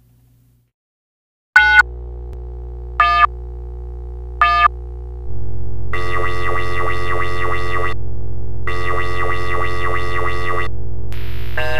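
Electronic synthesizer music. After a second and a half of near silence, a low drone enters with three short high chord stabs about a second and a half apart. A louder low tone then sets in under two long held chords, and a hiss enters near the end.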